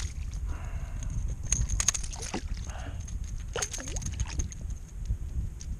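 A small speckled trout splashing at the surface beside a kayak as it is reeled in and grabbed, with a few sharp clicks and knocks, over steady wind rumble on the microphone.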